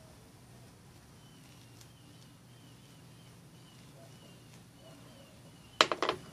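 A bowl set down on a glass tabletop, a short clatter of sharp knocks near the end. Before that, a bird chirps faintly over and over in the background.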